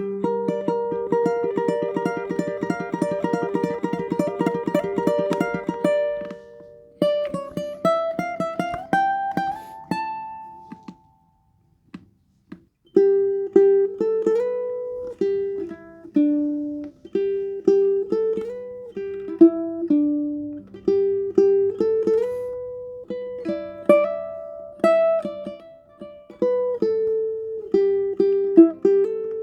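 Tenor ukulele played solo. It starts with fast repeated picked notes for about six seconds, then a rising run of notes, and after a short pause a picked single-note melody.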